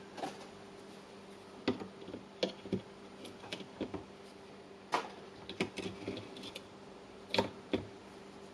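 Irregular sharp clicks and light scrapes of a small hand tool picking hardened white glue off a charger's circuit board, over a faint steady hum.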